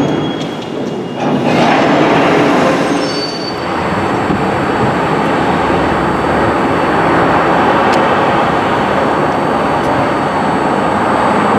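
London Underground rail noise: a train running on the track with a brief wheel squeal in the first few seconds, then an even, steady rumble from the open tracks.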